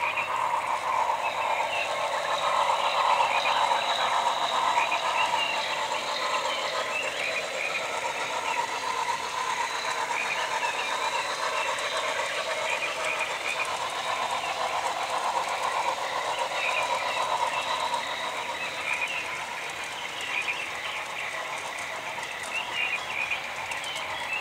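Model train running across the layout's truss bridges: a steady rolling rattle of wheels on track with a fine clicking chatter. It is a little louder a few seconds in and eases off toward the end.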